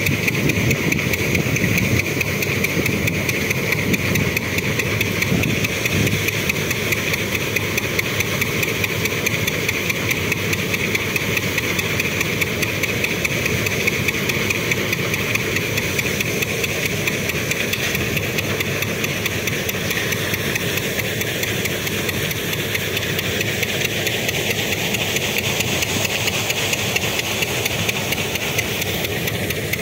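Tractor-powered groundnut thresher running steadily while peanut vines are fed in: a constant engine drone under a loud, even hiss.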